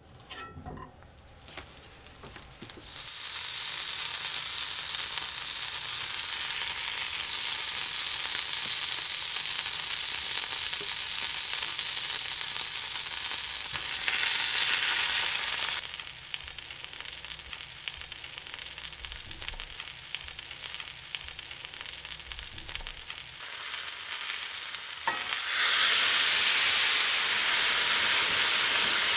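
Butter sizzling in a hot black iron skillet, then flour-dusted fish fillets frying in it, with a steady hiss and small spattering pops. The sizzle grows louder and harsher near the end.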